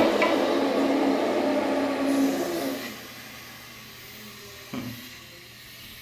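Early-1990s Kohler Wellworth toilet flushing: a loud rush and gurgle of water through the bowl that dies down about three seconds in to the quieter steady hiss of the tank refilling through its float-ball fill valve. One short knock near the end.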